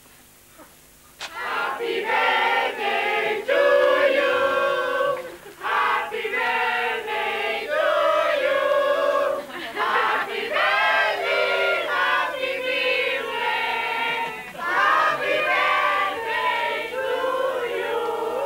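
A group of mixed voices singing together in chorus, holding long sung notes. The singing starts about a second in, after a brief hush.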